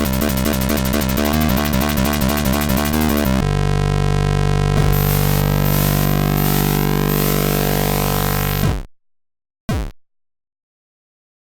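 ZX Spectrum AY sound chip music: fast chiptune arpeggios of buzzy square-wave tones for about three seconds, then a held chord with falling sweeps that cuts off sharply near nine seconds, followed by one short blip and silence.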